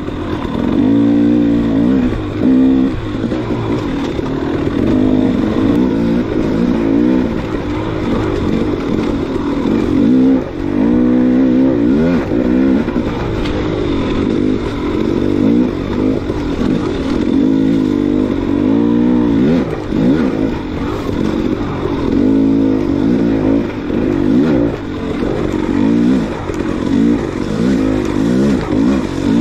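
Off-road motorcycle engine revving up and down over and over, its pitch rising and falling every second or two as the throttle is opened and closed.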